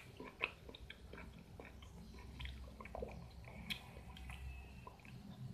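A person chewing young-mango rujak with the mouth closed: faint wet crunching and small mouth clicks, with one sharper click about half a second in.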